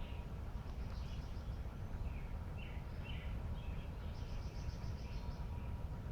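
Small songbirds chirping over a steady low rumble, with a rapid high trill about a second in and a longer one from about four to five seconds.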